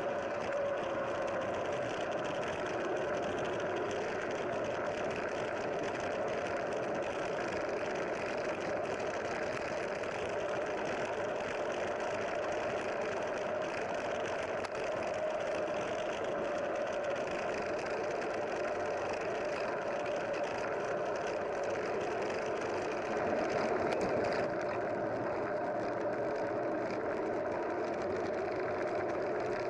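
A vehicle engine running steadily: an even drone with a constant hum, swelling slightly a little over 20 seconds in.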